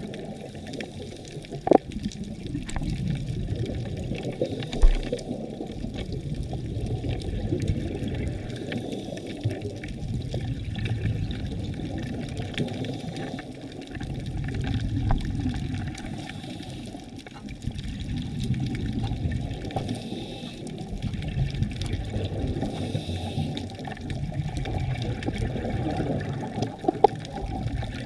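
Muffled underwater rushing and bubbling from a scuba diver's exhaled air, heard through an underwater camera housing, swelling and fading every few seconds. A few sharp clicks stand out.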